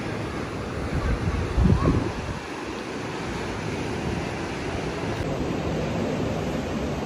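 Steady rushing of ocean surf and wind, with wind buffeting the microphone about a second in.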